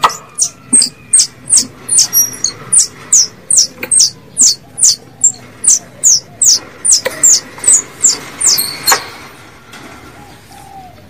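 Plantain squirrel lure call: a fast, even series of sharp, high-pitched chirps, a little under three a second, each falling in pitch, stopping about nine seconds in.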